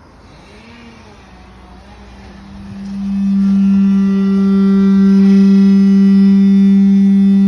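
AO Smith water heater making its abnormal noise: a tone that wavers up and down in pitch at first, then about three seconds in locks into a loud, steady, low hum with many overtones.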